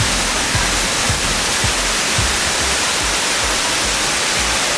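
Steady rush of a waterfall, with background music's low beat about twice a second underneath.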